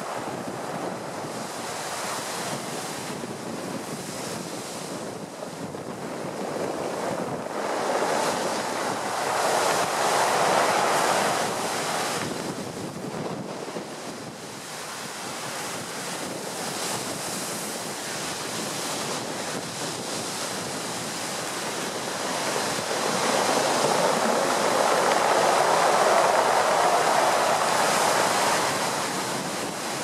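Storm surf crashing over wooden groynes and surging up a sloping sea wall at high tide, with strong wind buffeting the microphone. The surge swells loudest twice, about a third of the way in and again in the last third.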